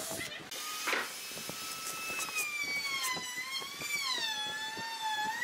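Cordless drill and driver motor whining as it bores and drives screws into pine, its pitch rising and wavering with trigger and load, with a sharp knock about a second in and a few small clicks.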